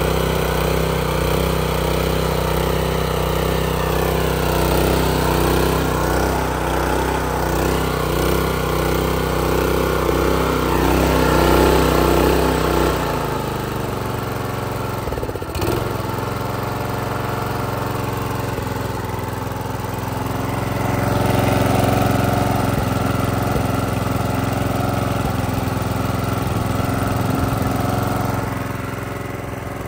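Honda small engine on a pressure washer running steadily, with the pump not pumping water. About halfway through, the engine note shifts lower and a little quieter, then runs on steadily.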